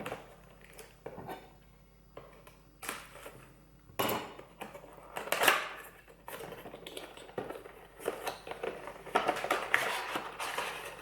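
Hands opening and handling the small box of a smart light bulb: scattered knocks, scrapes and rustles of packaging. The loudest come about four and five and a half seconds in, and the handling grows busier in the last few seconds.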